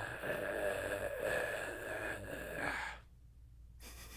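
A long, breathy sigh into a close microphone, lasting about three seconds and cutting off sharply.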